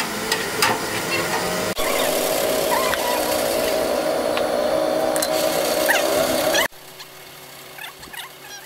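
A machine running steadily, loud and noisy with a constant hum, with a few sharp metal clicks near the start; it drops out abruptly a little under two seconds in and again near the end, leaving a much quieter background with faint high chirps.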